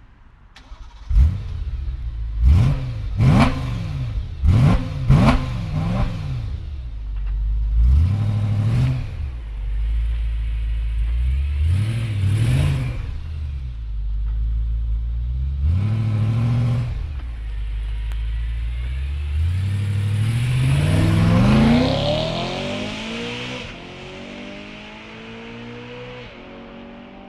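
BMW E90/E92 M3's 4.0-litre V8 through the M Performance exhaust system, being revved. About a second in it gives a quick run of sharp throttle blips, then several slower single revs, and a long climbing rev to a peak a few seconds from the end. After that it fades with a slowly rising pitch.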